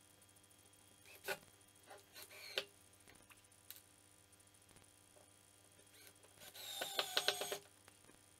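Cordless drill running for about a second in a few quick pulses as it goes into plywood. Before it, a few light clicks and knocks from a metal bracket and screws being handled on the wooden board.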